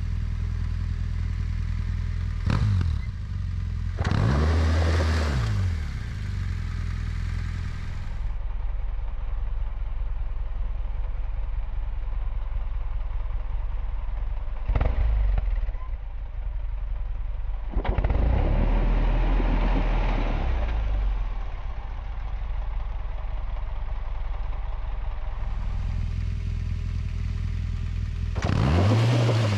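Adventure motorcycle engine running at a low idle, with about five short throttle blips whose revs rise and fall back as the bike is pivoted around on its clutch and throttle in an elephant turn. Through the middle stretch the sound is slowed to half speed, so the engine runs deeper and duller there.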